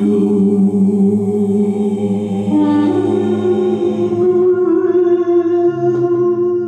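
Three voices improvising wordless, chant-like singing, holding long notes over a low sustained note. The pitches shift to new held notes about two and a half seconds in.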